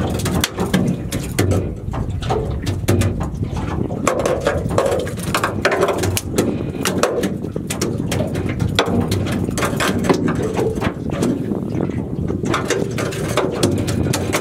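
Water slapping against a small aluminium boat's hull, with wind rumbling on the microphone and many irregular knocks and clicks.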